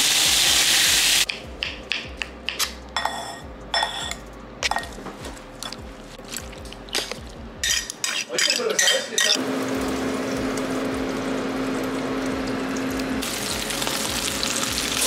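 Steak sizzling in a hot cast-iron grill pan, loud for about the first second and again near the end. In between, a run of sharp clinks from a metal fork against a glass bowl, then a steady hum.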